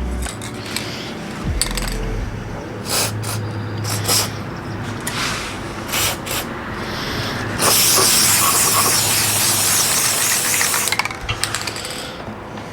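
Aerosol can spraying lubricating oil onto a lathe: one continuous hiss of about three seconds beginning a little past halfway. Scattered clicks and knocks come before it.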